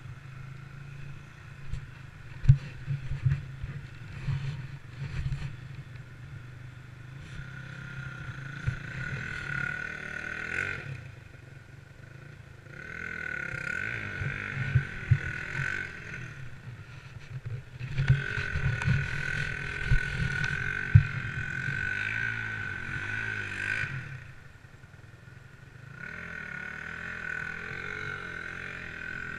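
A distant enduro motorcycle engine is held at high revs in several long bursts of a few seconds each, dropping back between them, as it works through mud. Some sharp knocks sound close by.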